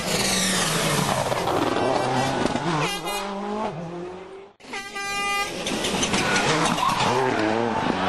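Turbocharged four-cylinder World Rally Car engines at full throttle on a rally stage, revs climbing and dropping with gear changes. The sound cuts out briefly about halfway through, then another car is heard revving hard.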